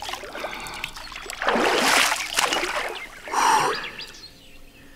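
Water splashing and trickling, with a louder rush about one and a half seconds in and a short splash about three and a half seconds in.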